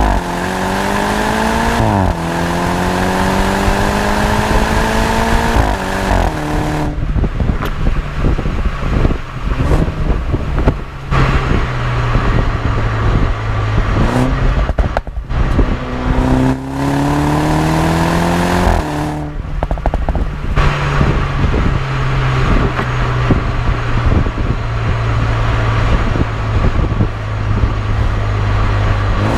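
BMW 125i's B48 turbocharged four-cylinder through a stock M140i cat-back exhaust. It revs up hard, with an upshift about two seconds in, then on lift-off the exhaust crackles and pops on the overrun. A second pull comes about two-thirds through, followed by more popping and crackling on the overrun.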